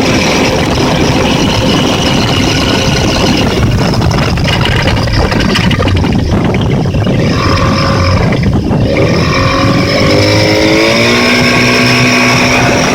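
A Yamaha 30 hp outboard motor running loud and steady, with the knocking it is being run to show. Its speed dips about two-thirds of the way in, then rises and holds at higher revs near the end.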